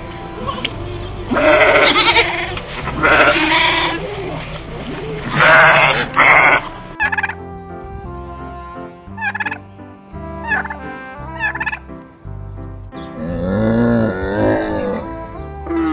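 Turkeys gobbling, several loud rattling gobbles in the first half, then shorter sharp calls, over background music. Near the end comes a lower, drawn-out animal call.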